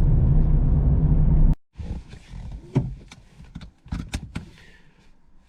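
Loud, steady vehicle rumble inside the cab that cuts off abruptly about a second and a half in. After it comes quieter clicking and knocking, with a few short, low animal noises from the dog.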